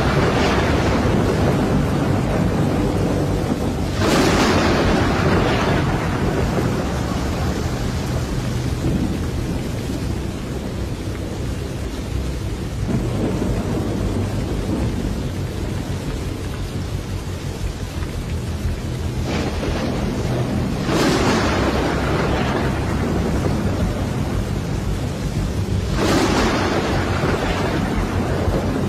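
A thunderstorm: rain falling steadily while thunder breaks out suddenly four times, each clap dying away over a few seconds.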